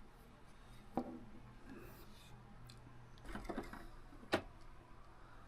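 Plastic building-brick model being handled: a sharp click about a second in, a few small clacks around three and a half seconds, and another sharp click a little after four seconds, over a faint low hum.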